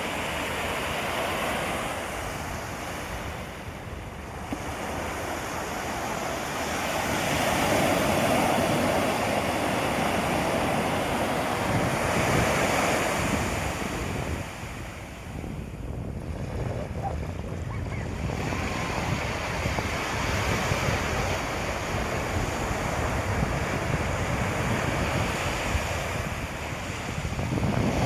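Sea waves breaking and washing up the beach: a continuous rush of surf that swells louder for several seconds about a third of the way in and eases off around the middle. Wind buffets the microphone.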